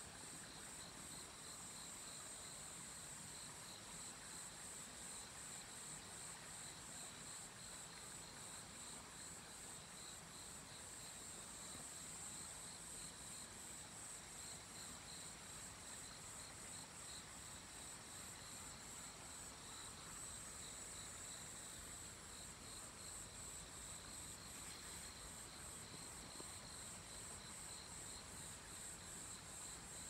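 Faint chorus of insects chirring in steady, even pulses, high-pitched, with a weaker lower-pitched pulsing line beneath.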